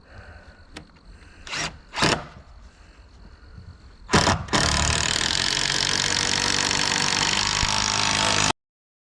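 Cordless drill driving a screw up at an angle into a rafter: two short blips of the trigger, then a longer steady run of about four seconds that cuts off abruptly.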